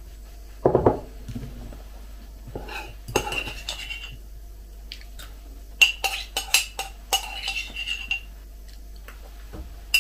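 A metal teaspoon stirring kefir in a ceramic mug, clinking against the sides in two runs of sharp strikes. A short dull thump about a second in.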